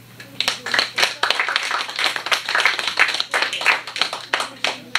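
A small audience clapping: a few people's hands, irregular claps starting just after the start and stopping at the end.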